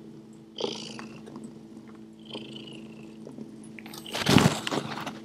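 Cat purring close to the microphone, with a loud brushing thump about four seconds in.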